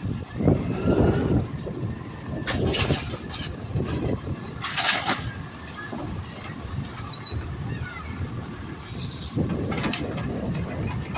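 Automated side-loader garbage truck working its cart arm: the diesel engine and hydraulics run steadily while the arm lifts and lowers a cart, with several clattering knocks of cart and arm and a short hiss about five seconds in.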